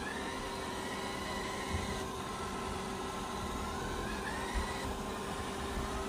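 Roborock S6 robot vacuum running: a steady fan hum with a motor whine that rises and falls in pitch several times as it moves and turns, and a couple of light knocks.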